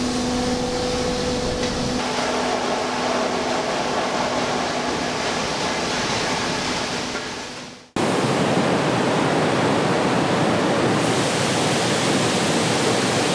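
Steady rushing noise like steam or falling water, with a low hum that fades away. About eight seconds in it fades out and then cuts back in abruptly, louder.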